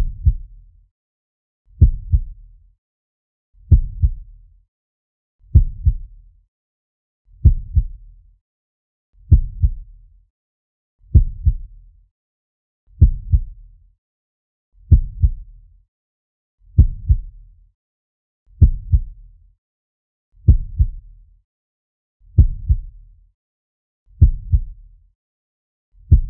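Slow heartbeat sound effect: a deep double thump, lub-dub, repeating steadily about once every two seconds with silence between the beats.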